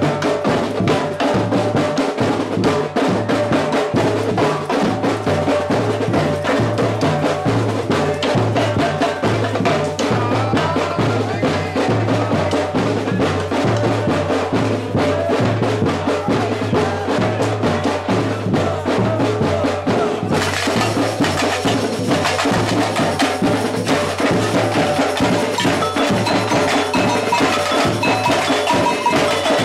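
Samba percussion band playing a dense, driving groove of drums with sharp struck accents on top. About two-thirds of the way through, the sound grows brighter and busier in the high range.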